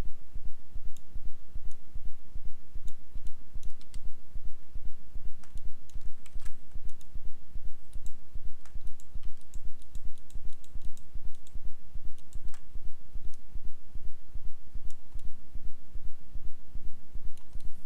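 Scattered computer mouse clicks and keyboard presses over a steady low hum that pulses evenly about four times a second.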